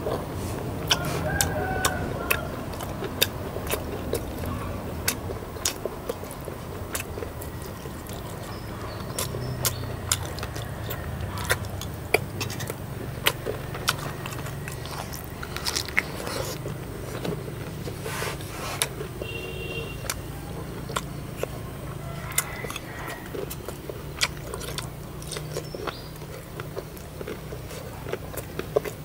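Someone chewing and biting into fish-sauce-fried chicken tails, with many sharp clicks throughout, over a steady low hum.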